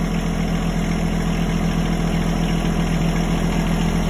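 Compact tractor engine running steadily while the front loader's hydraulics tilt the bucket forward to dump.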